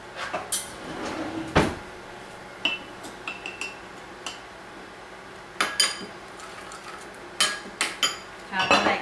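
Kitchen clatter: a spoon clinking in a small glass jar among knocks of dishes and utensils on the counter. The loudest sound is a single heavy knock about a second and a half in.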